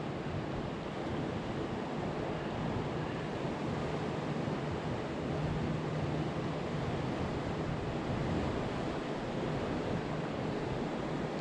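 Steady wind and water noise, with a faint low hum that comes and goes.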